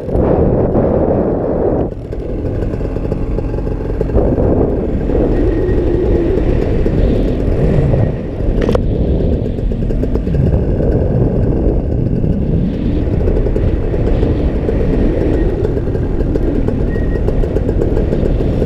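Paramotor engine running steadily in flight, with short dips in level about two and eight seconds in.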